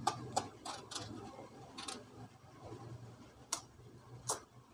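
Kitchen knife paring the skin off a green eggplant in short strokes, each a brief scraping click, about seven of them at irregular intervals.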